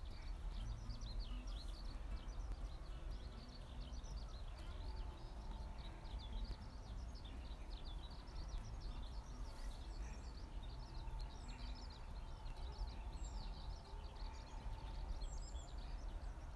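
Many small birds chirping in a continuous busy chatter over a steady low rumble.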